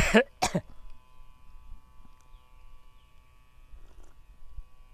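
Two short breathy throat sounds from the storyteller at the very start, then a faint steady electrical hum with several thin high whining tones.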